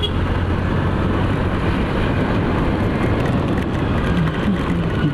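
Steady rush of wind and heavy rain on the camera of a moving Honda Dio scooter, with the scooter's engine and its tyres on the wet road underneath.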